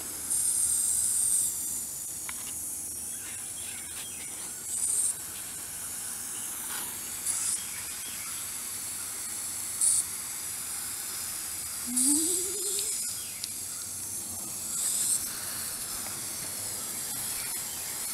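Garden hose spray nozzle hissing in about six short spurts of spraying water over a steady background hiss.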